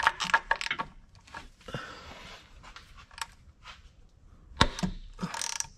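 Metal tool clicks and clanks as a socket and ratchet are fitted onto a car's cartridge oil-filter housing cap. There are small clicks in the first second and two louder knocks near the end.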